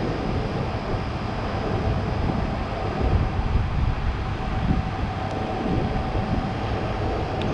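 Walk-in cooler condensing unit running, compressor and condenser fan, as a steady rumbling drone with a faint steady hum. The system is low on refrigerant charge and short-cycling, running just before it cuts out on low pressure.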